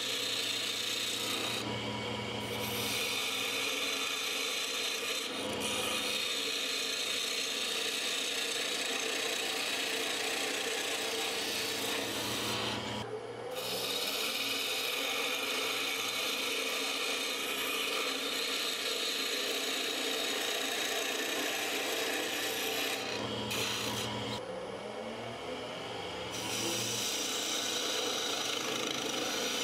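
Turning tool cutting into a spinning blank of dense green arbutus on a wood lathe, a steady scraping hiss of steel on wood over the lathe's hum. The cut lets up briefly about 13 seconds in and again around 24 seconds in.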